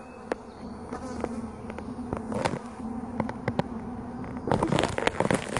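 Honeybees buzzing over an open hive, a steady hum. Scattered sharp clicks run through it, and about four and a half seconds in a louder burst of crackling and rustling begins.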